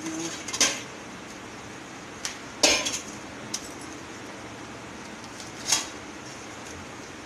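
Metal kitchenware clinking: three sharp clinks a couple of seconds apart, with a few lighter ticks between them.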